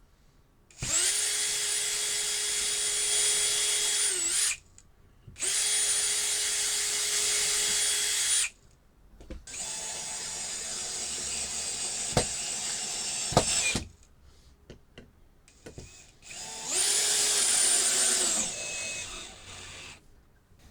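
Power drill running in four bursts of a few seconds each, each at a steady pitch that dips briefly as it takes load or spins down, with short pauses between them.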